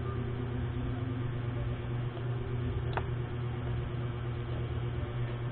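Steady low mechanical hum, with a single sharp click about three seconds in.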